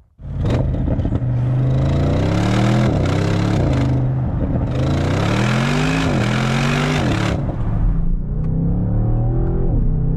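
2020 Audi RS6 Avant's 4.0-litre twin-turbo V8 accelerating hard through the gears. The engine note climbs, then drops at each upshift, about three times, over a hiss of road and wind noise.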